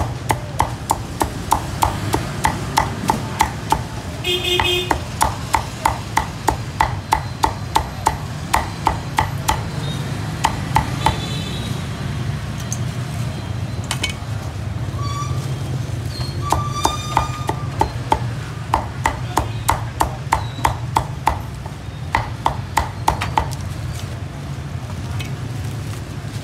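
Meat cleaver chopping Vietnamese roast pork (heo quay) on a thick wooden chopping block. Quick, even strokes come about three a second in runs with short pauses, and stop a couple of seconds before the end.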